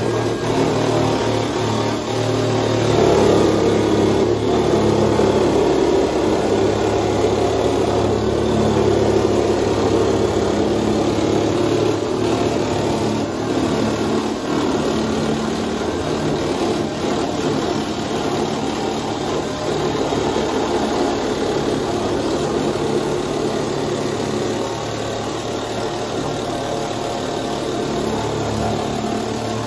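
Parkside electric nibbler running steadily as it cuts along a line through the van's sheet-steel side panel.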